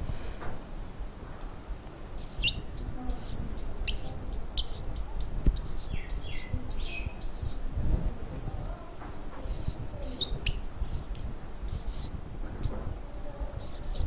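Dry-erase marker squeaking and ticking against a whiteboard as numbers are written: clusters of short, high squeaks with a few brief gliding squeals among them.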